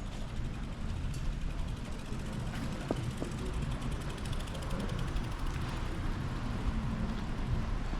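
Shopping-street ambience: a steady low city rumble, with a rapid mechanical ratchet-like ticking for a few seconds in the middle.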